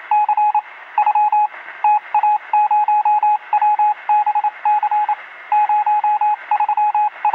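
Morse code: a single beeping tone keyed on and off in groups of short and long signals over steady static hiss, with the thin, narrow sound of a radio set.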